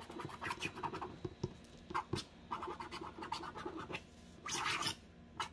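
Wooden-handled scratch stylus scraping across a black-coated scratch-art sheet as a signature is written: an irregular run of short scratching strokes, with a longer one about four and a half seconds in.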